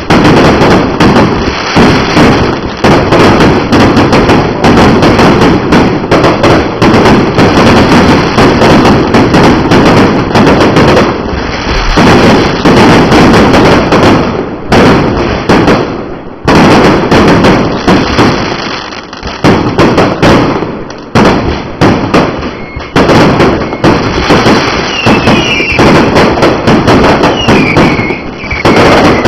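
Fireworks display: loud, rapid bangs and crackle following one another almost without a break, with a few short lulls. Several whistling squeals come in near the end.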